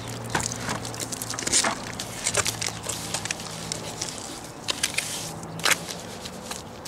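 Steel pointing trowel scraping and tapping on wet cement as the top of a brick chimney is smoothed: short irregular scrapes and clicks, with sharper knocks about one and a half seconds in and again near the end.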